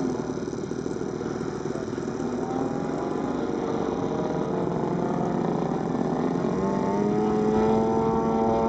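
Radio-controlled aerobatic model airplane's engine and propeller in flight. The note drops away at the start and runs low and rough, then glides up in pitch over a couple of seconds near the end and settles into a steady higher drone.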